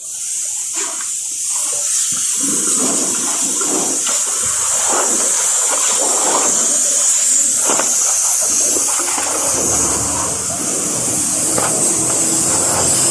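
High-pressure water jet spraying onto a car, a loud steady hiss with splashing that starts abruptly as the spray comes on.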